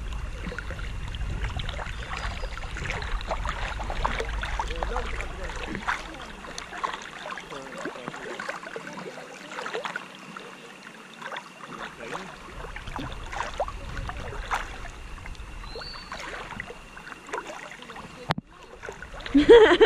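River water lapping and splashing close against an action camera held at the waterline, with many small irregular splashes from a hand moving in the water. A faint steady high tone runs underneath, and a louder burst of sound comes near the end.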